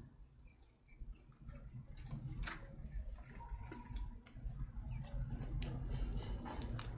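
White slime being pressed and squished by hand in a clear plastic cup, giving scattered sharp clicks and crackles that come thicker from about two seconds in.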